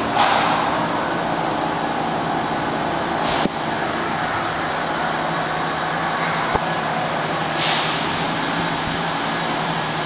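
R68A subway train's steady hum, broken three times by short hisses of air from its brakes, the last the loudest, with a single sharp click shortly before it.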